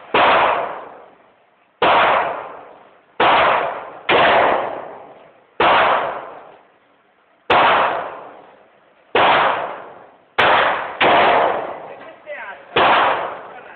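Smith & Wesson Model 19 .357 Magnum revolver firing at an indoor range: about ten sharp shots at irregular one-to-two-second intervals, each trailing off in a long echoing decay.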